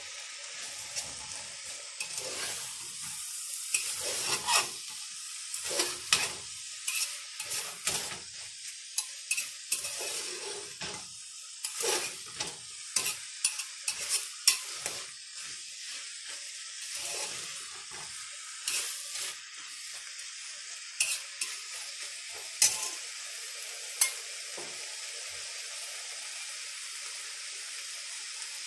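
Diced vegetables sizzling as they sauté in an aluminium pressure cooker, with a slotted metal spoon scraping and knocking against the pot as they are stirred. The stirring clatter stops about 24 seconds in, leaving only the steady sizzle.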